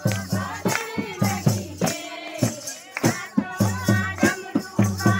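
Garhwali devotional kirtan: women singing to a quick, steady beat of drum strokes and hand claps, with jingling percussion over it.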